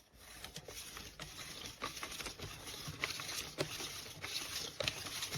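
Twist-style plastic chicken shredder being turned by hand with cooked chicken inside: a continuous scraping and rattling of the plastic lid and tines as the meat is torn, with irregular sharp clicks.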